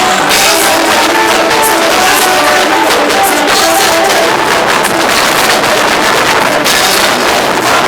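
Loud music with a melody of short plucked guitar notes over a dense, busy backing.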